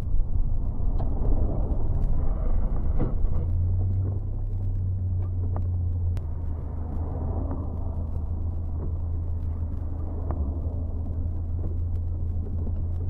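Road noise inside a car's cabin on a wet highway: a steady low drone of engine and tyres, with a few faint ticks.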